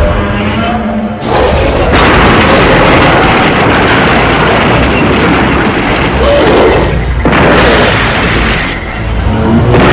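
Monster-movie fight sound effects: heavy booms and crashing impacts one after another, loud and dense, over film music.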